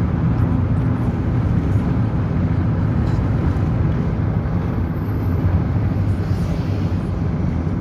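Steady engine and road rumble of a car on the move, deep and unbroken.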